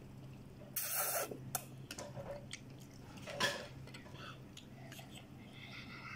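People eating noodles: slurping and chewing, with a loud slurp about a second in and a sharp click of plastic cutlery against a bowl a little past the middle.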